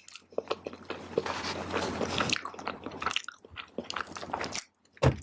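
Close-miked chewing of a mouthful of tofu vegetarian fried rice: a run of small wet mouth clicks and smacks, pausing briefly near the end before one more click.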